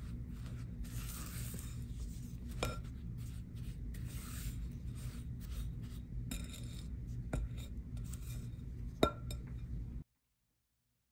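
Silicone spatula stirring and scraping butter and brown sugar against the sides of a glass mixing bowl, with a few light knocks on the glass, the sharpest about nine seconds in. The sound cuts off abruptly about a second before the end.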